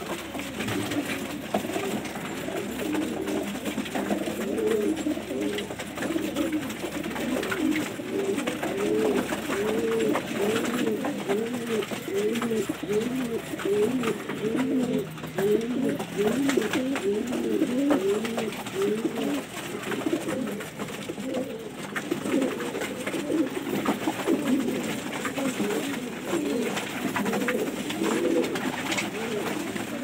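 A loft of domestic gola pigeons cooing together: many overlapping, repeated rise-and-fall coos.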